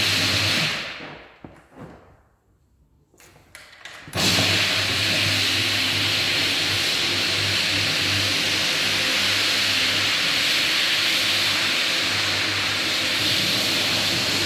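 Floor buffer sanding a hardwood floor with 80-grit abrasive, running with a steady hum and hiss. About a second in it winds down over a second or so to near silence. A few seconds later it starts up again suddenly and runs steadily.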